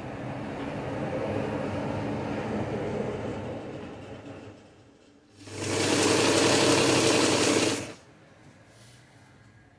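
Electric sewing machine stitching a gathered cotton ruffle. It runs steadily, slows and stops about four and a half seconds in, then makes a louder, faster run of about two and a half seconds before stopping again.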